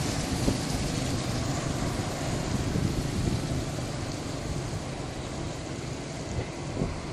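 Jet airliner noise near the runway: a broad rushing roar that slowly fades.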